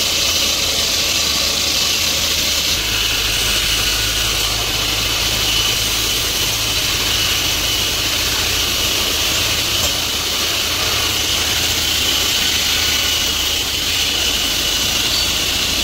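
Belt grinder running while steel pliers are ground against its abrasive belt: a steady grinding hiss over the motor's low hum, which grows a little stronger about three seconds in.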